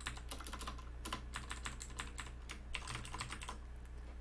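Computer keyboard typing in quick runs of keystrokes, much of it repeated space-bar presses. The typing stops about three and a half seconds in.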